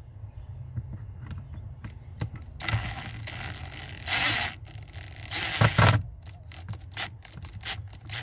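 DeWalt power driver on a long extension whining as it runs a screw into the fan control module for a few seconds. It then gives a quick string of short trigger blips, feathered to snug the screw into fast plastic threads without stripping them.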